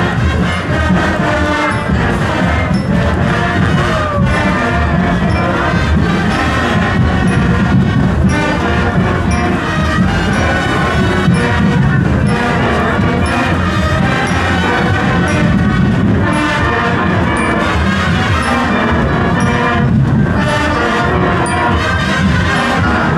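Marching band playing, brass carrying the tune over a steady beat.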